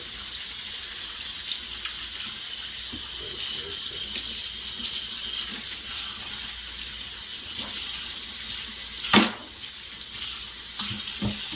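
Water running steadily from a tap while fish are being cleaned, with one sharp knock about nine seconds in.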